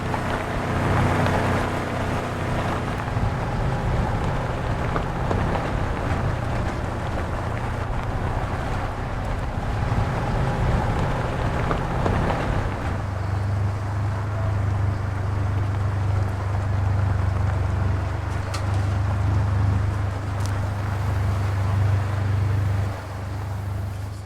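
Polaris side-by-side (UTV) engine running as it drives, a steady low drone under a haze of road and wind noise; the drone becomes steadier and stronger about halfway through.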